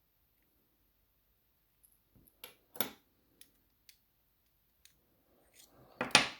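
Small metallic clicks and scrapes of tools working the core of a dimple lock cylinder: a few scattered ticks, then a louder scraping rattle near the end.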